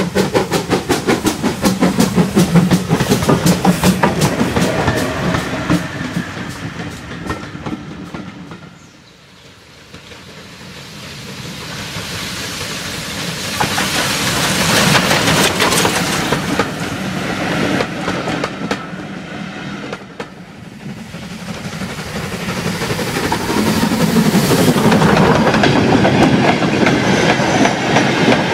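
A GWR Manor class 4-6-0 steam locomotive working toward the camera, its exhaust beats fast and regular, then fading away. After that a tank engine runs past with a hiss of steam. Near the end a train of goods wagons rolls past close by, wheels clattering loudly over the rail joints.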